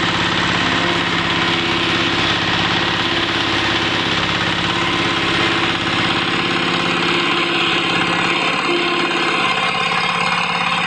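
Wood chipper's engine running steadily with a dense mechanical rush over its tone.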